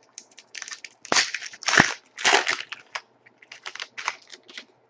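Trading cards being handled and slid across one another, a series of short rustling, scraping bursts, loudest about a second to two and a half seconds in.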